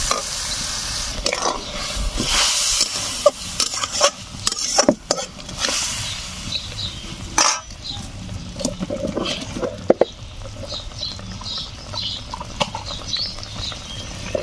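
Metal spatula scraping and knocking against a metal kadai while stirring a wet spice masala as it fries down after water has been added. A sizzling hiss is heard at first and fades within the first few seconds.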